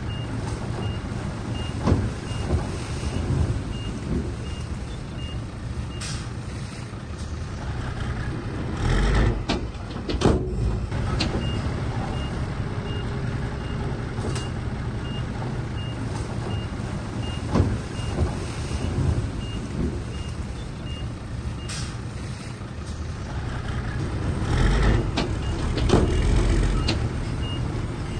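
Diesel engine of heavy earthmoving equipment running steadily, with a reversing alarm beeping a little under twice a second as a machine backs up. Heavy clanks and thumps break in twice, about nine to ten seconds in and again near the end.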